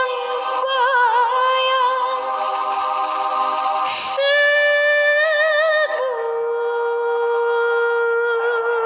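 Female voice singing long held notes with vibrato, with a short hiss about four seconds in and a step down to a lower sustained note about six seconds in.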